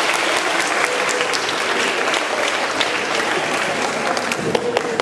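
Audience applauding: a dense patter of hand claps that slowly thins and tails off toward the end.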